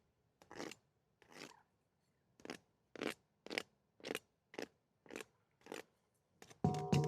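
A run of short, crisp crunching strokes, about two a second, with a brief pause near the middle. Music with steady tones comes in near the end.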